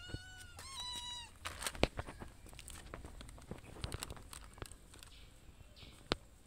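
A cat meows twice, two drawn-out calls that rise and fall, as the food is put down. Then a plastic cat-food pouch crinkles and crackles in sharp, irregular clicks while the cats eat and lick at it.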